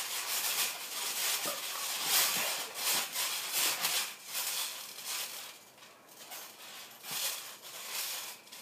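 Scuffling and rustling of bodies grappling on a trampoline mat: an uneven, noisy rasp that goes quieter about six seconds in.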